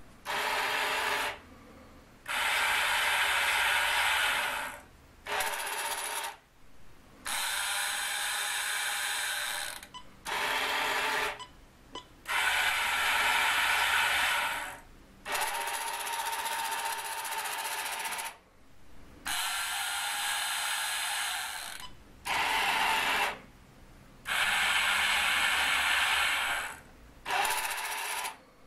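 Small electric motors and gear trains of a 1962 toy excavator running in a string of starts and stops, about eleven runs of one to three seconds each with short pauses between. These are the boom and grab movements, switched on and off in sequence by relay outputs.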